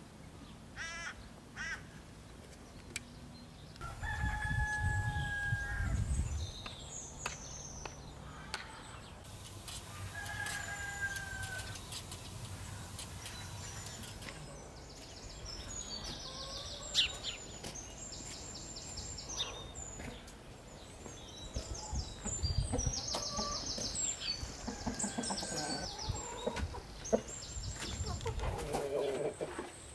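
Roosters crowing, two long calls about four and ten seconds in, with hens clucking and small birds chirping in fast high trills.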